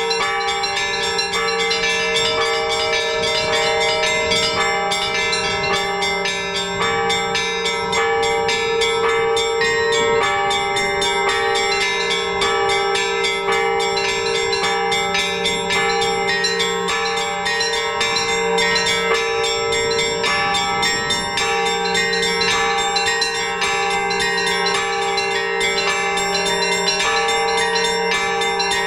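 Russian Orthodox church bells rung by hand in a continuous peal. The smaller bells are struck in quick, steady rhythm over the long, lingering tones of the larger bells.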